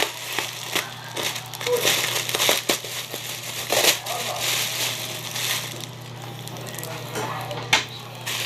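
Thin black plastic bag wrapping crinkling and crackling in irregular bursts as it is handled and cut open with scissors.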